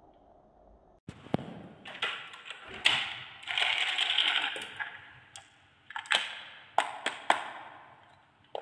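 A plastic toy truck and trailer being handled and moved on a table: a quick run of clicks, knocks and rattling that starts about a second in, densest in the middle.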